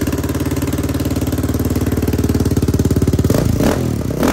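Yamaha Raptor 660R's single-cylinder four-stroke engine running steadily after its top-end rebuild, with a brief rev about three and a half seconds in.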